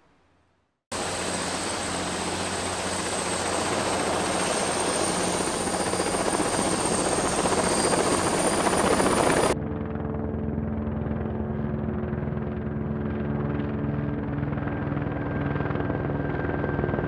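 A two-blade helicopter flying low overhead: dense rotor noise with a high thin whine, growing louder. About nine and a half seconds in it cuts off to a more distant helicopter, a steady lower drone with a pulsing rotor beat.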